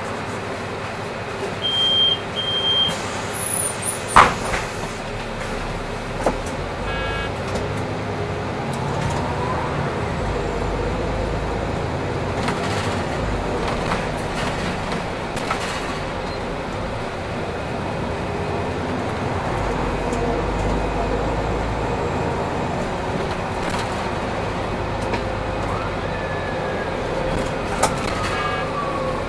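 Solaris Urbino 8.9LE city bus running and driving, its engine and road noise steady, with faint whines gliding up and down in pitch. About two seconds in there are two short high beeps, then a sharp click.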